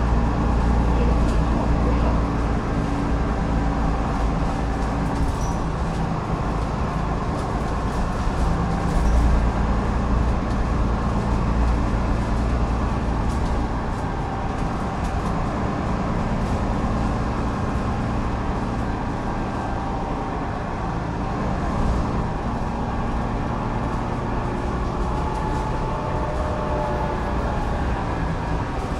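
A bus's Cummins ISLe 8.9-litre inline-six diesel running under way with a ZF 6HP604C six-speed automatic gearbox, heard from inside the passenger cabin. It is a steady low engine drone with a thin whine above it.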